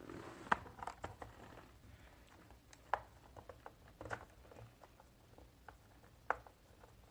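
Irregular light clicks and taps of small hard parts being handled, such as plastic and metal keyboard pieces and screws, with a few sharper clicks spaced a second or two apart.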